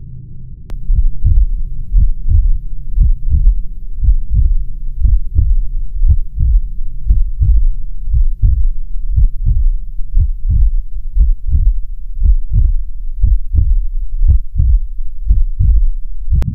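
Suspense sound design: a loud heartbeat, a steady run of low thuds over a low droning hum, setting in with a sharp click about a second in.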